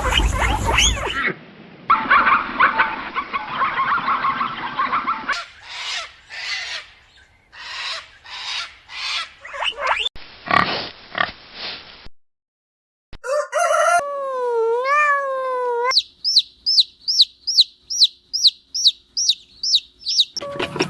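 A run of different farm-animal calls, clip after clip with sudden cuts: noisy calls and repeated short cries, a wavering drawn-out call, then a quick series of high falling chirps, about three a second, typical of chicks peeping.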